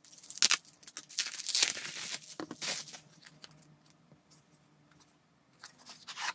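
Plastic bubble wrap crinkling and crackling as it is pulled off a pen box. The crinkling is densest in the first three seconds, then gives way to a few faint knocks and clicks from the box being handled.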